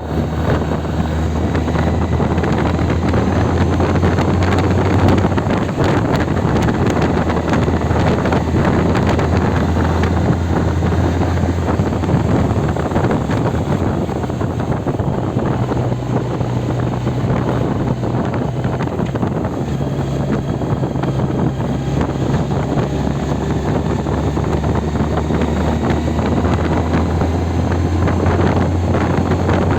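Motorcycle engine running steadily while riding, under heavy wind noise on the microphone; the engine note drops a little about halfway through and then steadies again.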